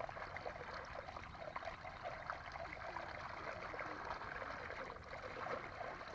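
Water trickling and splashing in small irregular spatters.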